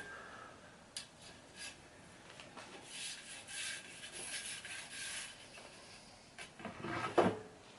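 Pile weather-stripping brush being slid along the groove of an aluminium screen-door track, a soft scraping rub in uneven strokes, with a few light clicks near the end.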